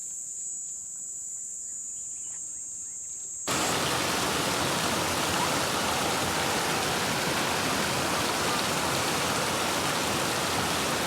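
A steady high insect trill over quiet surroundings, then about three and a half seconds in a sudden cut to the loud, even rush of flowing river water.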